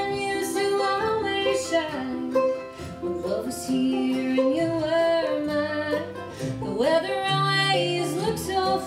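Live acoustic bluegrass band: a fiddle takes the lead at the microphone with a sliding, bending melody over strummed acoustic guitar, mandolin chop, banjo and upright bass.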